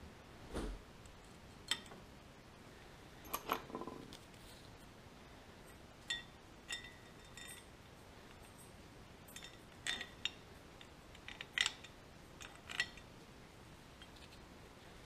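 Scattered light metallic clinks and taps as steel plates and a pulley are handled and slid onto a threaded steel shaft by hand, with a short ringing clink about six seconds in.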